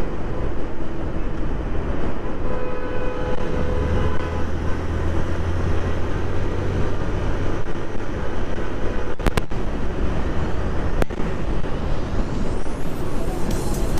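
Motorcycle riding at about 90 km/h: a steady rush of wind and road noise over the engine's hum, which stands out for a few seconds around the middle. Two sharp clicks come later on.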